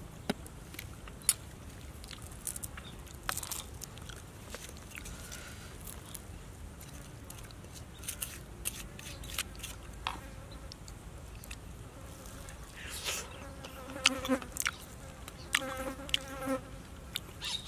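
Grilled catfish being pulled apart and chewed: scattered small crackles and clicks. A fly buzzes close by twice near the end.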